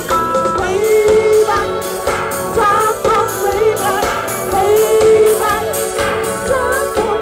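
Live pop band playing loudly through a PA, with a lead voice singing held and sliding notes over the band and drums.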